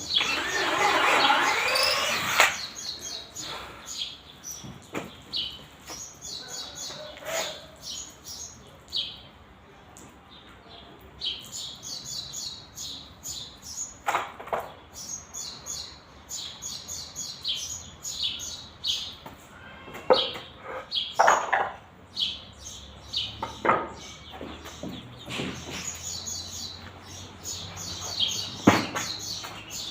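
Small birds chirping in repeated short high notes, with a few sharp knocks now and then. A power tool cuts off about two seconds in.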